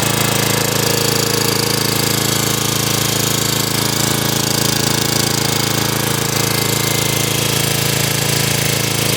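Predator 301cc single-cylinder engine (a Honda GX240 clone) on a small backhoe, running at a steady speed with a rapid, even firing pulse.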